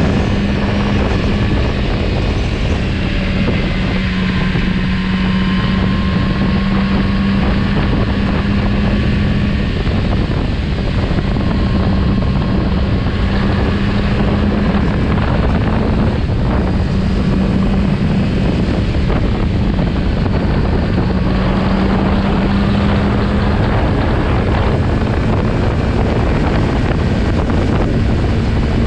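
Kawasaki Z900RS Cafe's 948 cc inline-four engine running steadily at road speed, its note rising and dipping a little, with heavy wind noise on the microphone.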